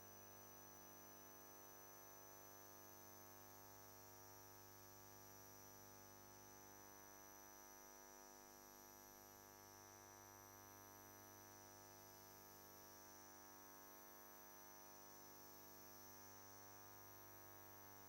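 Near silence: a faint, steady electrical hum with a faint high whine, no other sound.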